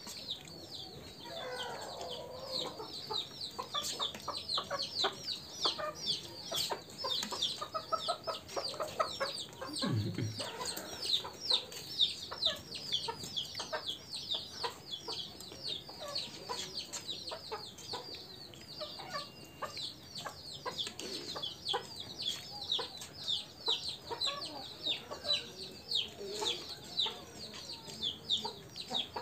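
Chickens calling steadily: a dense stream of high, downward-sweeping peeps with occasional clucks. Spoons click now and then on the plates.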